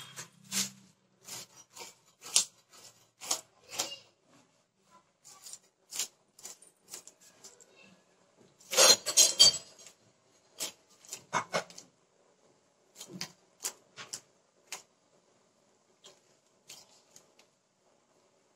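Small baspata fish being scaled and cleaned on a boti, an upright fixed kitchen blade: irregular short scrapes of the blade over scales and flesh, with the loudest, densest run of scraping about nine seconds in.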